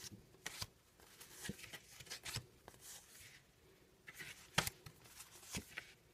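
Stiff paper cards being flipped through by hand, one slid behind another: soft rustles and scattered light flicks and taps of card on card. The sharpest flick comes about four and a half seconds in.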